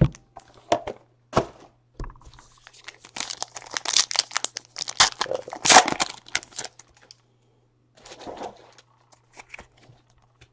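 A few sharp knocks as a cardboard trading-card box is handled, then, from about three seconds in, a card pack's wrapper torn open and crinkled for a few seconds, followed by faint rustling as the cards are handled.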